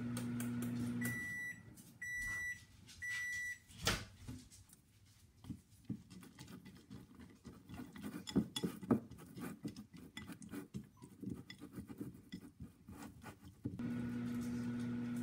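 Microwave oven humming, then stopping with three short beeps about a second in, followed by a click as its door opens. A spatula then scrapes and clinks in a glass bowl of melted chocolate, and near the end the microwave starts humming again, reheating the chocolate.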